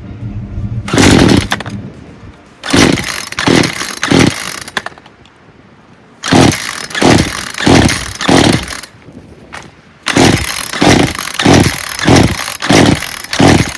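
Poulan Pro two-stroke chainsaw being pull-started on choke: the recoil starter cord is yanked again and again in three quick runs, each pull a short rasping crank of the engine. The engine never catches: a saw that will not start.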